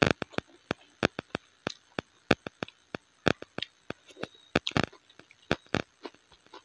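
Close-miked eating sounds of a person eating rice and dal by hand: wet chewing and lip smacks, heard as a run of sharp, irregular clicks a few per second.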